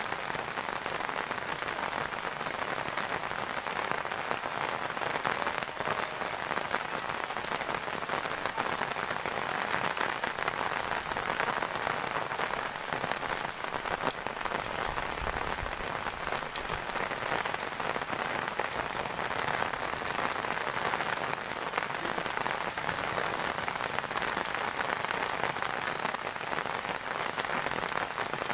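Heavy rain falling steadily, pattering on corrugated metal roof sheets.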